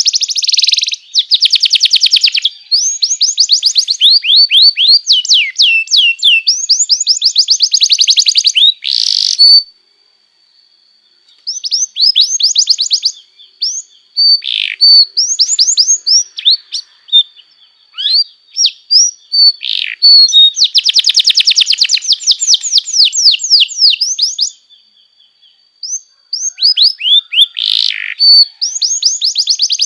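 Canary singing: long phrases of fast trilled notes, repeated many times a second, broken by short pauses, with a thin steady whistle held for several seconds through the middle.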